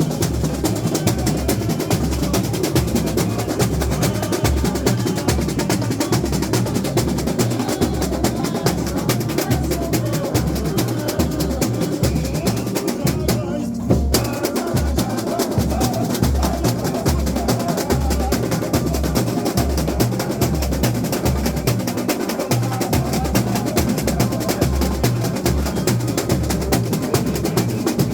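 Samba school bateria playing samba: surdo bass drums keep a steady low beat about twice a second under dense snare-drum rolls and rattling small percussion.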